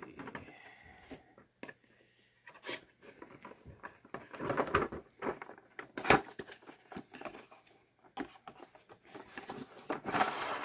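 Cardboard box with a plastic window being handled and opened: scattered rustling and scraping of the packaging, a sharp tap about six seconds in, and louder rustling near the end as the end flap is pulled open.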